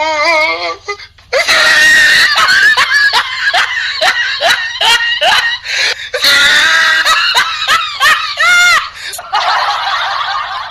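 People laughing hard and screaming, in rapid rhythmic bursts of laughter, with a rising-and-falling shriek near the end.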